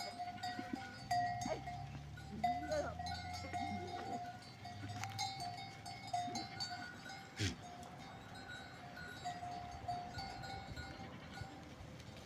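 Livestock bells clinking on and off as a flock of sheep or goats moves, with a short bleat or two early on. There is one sharp knock about seven and a half seconds in.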